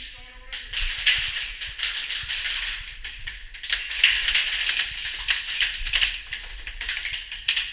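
Airsoft guns firing in rapid bursts: a fast, dense mechanical rattle of clicks, broken by short pauses twice.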